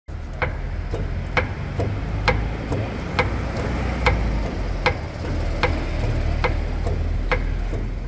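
Sharp, regular clicking knocks from a Volkswagen Amarok's steering rack shifting in its worn mounting bushings as the wheel is rocked back and forth. They come about twice a second for the first three seconds, then slow to about one a second, over a steady low hum. The knock is the sign of excessive play in the steering rack and its mounts.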